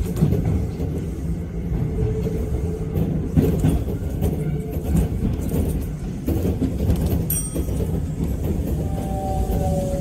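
Keisei Kanamachi Line electric commuter train running on the rails, heard from the cab at the front: a steady low rumble with rail clacks. A brief high squeal comes about seven seconds in, and a falling whine near the end as the train slows toward a station platform.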